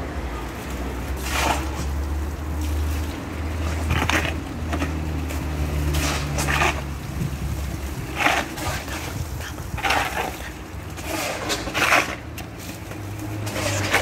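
Steel shovels scraping across concrete and digging into a pile of sand and soil, one short scrape about every two seconds. A steady low hum runs underneath and fades about halfway through.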